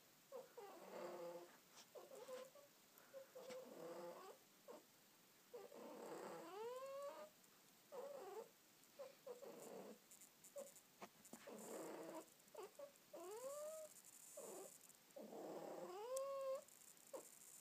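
A long-haired domestic cat meowing over and over, a dozen or so separate calls, several of them drawn out with the pitch rising and then falling.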